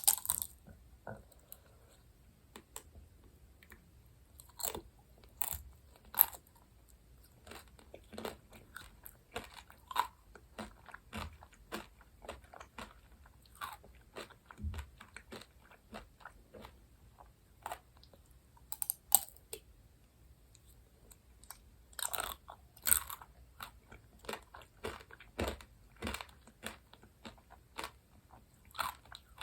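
Close-miked eating sounds: a person biting and chewing sweets, with irregular crisp clicks and crunches and a few louder bites scattered through.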